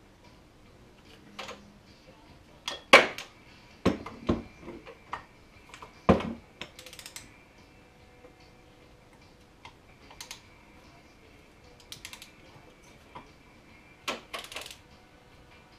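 Metal hand tools clicking and clinking as a socket wrench works the Y-pipe nuts in a snowmobile engine bay. The clicks are irregular, with sharper knocks about three and six seconds in.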